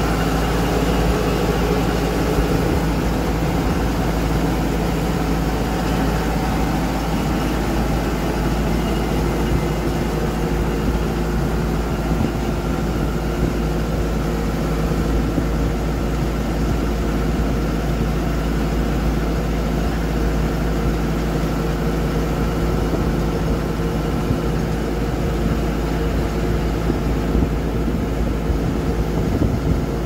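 Tracked mini combine harvester's engine running steadily as the machine drives across the yard on its tracks.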